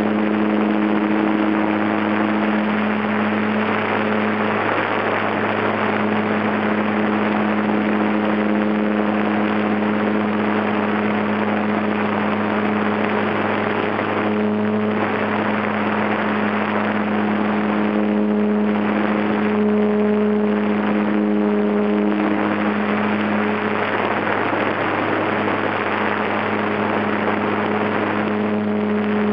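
HobbyZone Super Cub's brushed electric motor and propeller running in flight, heard from a camera on the plane: a strong steady hum over a dense rushing hiss. The higher tones in the hum waver in pitch a few times in the middle.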